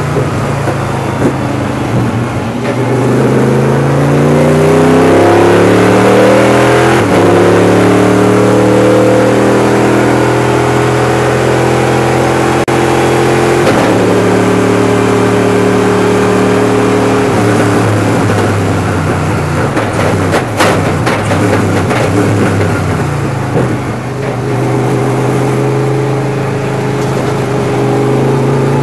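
V8 Star Jaguar race car's V8 engine heard from inside the cockpit under hard acceleration, its pitch climbing and dropping sharply at several upshifts. About twenty seconds in, a few sharp cracks come as the revs fall for braking into a corner, then the engine pulls hard again.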